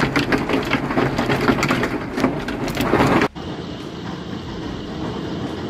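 Hailstones pelting down, a dense rattle of many hard impacts. About three seconds in it cuts to a quieter, steady hiss of hail and rain falling.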